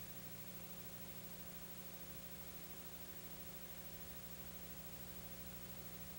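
Steady hiss with a low electrical hum, unchanging throughout: the background noise of a silent home movie's transfer, with no sound from the shovelling on screen.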